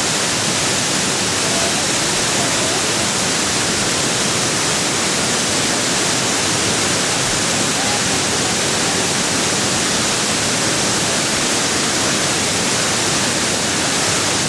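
Waterfall rushing, a steady, loud wash of falling water with no let-up.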